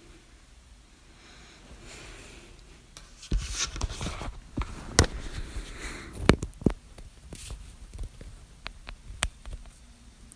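A person's hiccups: several short, sharp hics one to two and a half seconds apart, with loud rustling close to the microphone from about three seconds in.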